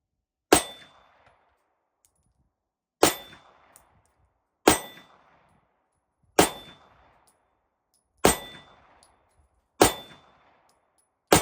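Walther P1 9mm pistol fired in slow aimed shots: seven shots, about two seconds apart, the last at the very end, each followed by a short ringing tail.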